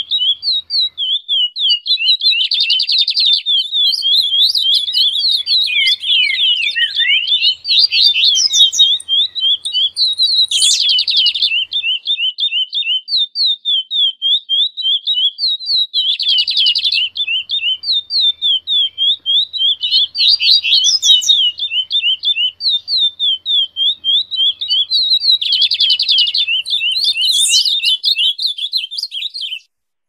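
Baderna track: several recorded songbirds singing at once, an unbroken run of fast high chirps with a dense buzzy trill about every five seconds. It breaks off at the very end.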